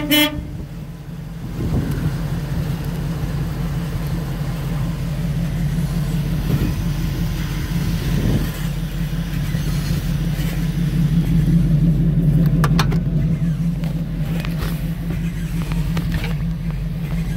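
A 1975 Dodge W300 Power Wagon's 440 V8 engine running steadily, heard from inside the cab, getting louder for a few seconds about two-thirds of the way through.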